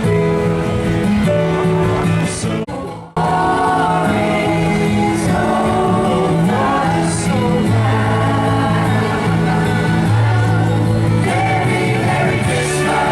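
Choir singing, with long held notes in several parts. The sound drops away briefly about three seconds in, then the singing carries on.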